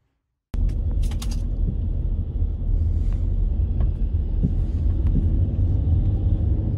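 Steady low rumble inside a car's cabin while riding, starting abruptly about half a second in, with a few light clicks about a second in.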